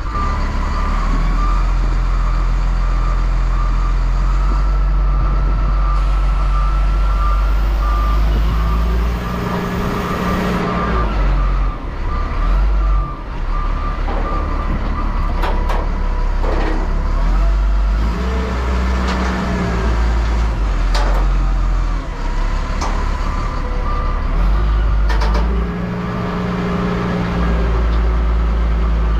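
CAT 938G wheel loader's diesel engine running under changing load as it carries a snow plow hung by chains from its bucket, with its backup alarm beeping steadily while it reverses, for the first third and again near the end. A few sharp clanks come in the middle.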